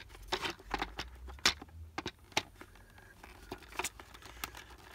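Hard plastic playset parts clicking and knocking as they are handled and fitted together: a scatter of short, sharp clicks at irregular intervals.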